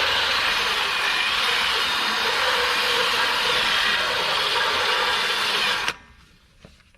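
A handheld power tool running steadily as it cleans out a too-tight ABS sensor bore, then cutting off abruptly about six seconds in, followed by a few light knocks.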